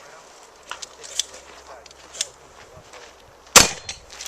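A shotgun fires once, loudly, about three and a half seconds in, with a brief echo. A few fainter sharp cracks come before it.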